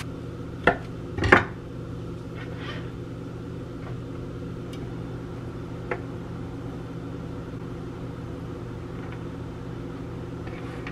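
A kitchen knife knocking against a wooden cutting board as dates are sliced open and pitted: two sharp knocks in the first second and a half and a lighter one near the middle, over a steady low hum.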